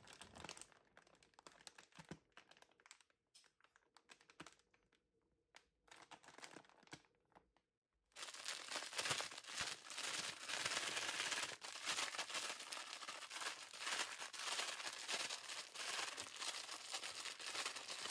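Clear plastic grain-spawn bag of rye crinkling as a hand squeezes it to break up the partly colonized grain and spread the mycelium, at first only a few soft, scattered crinkles. From about eight seconds in, a steady, louder rustling as the grain is shaken around inside the bag.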